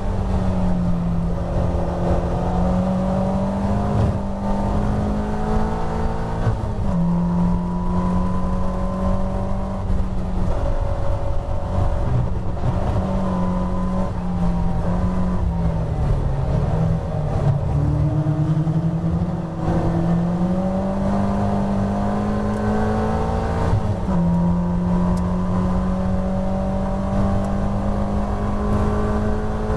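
Caterham Seven's four-cylinder engine heard from inside its open cockpit at racing speed, running hard with wind rush over the car. The engine note steps with gear changes, sags about halfway through as the car slows for a corner, then climbs again under acceleration.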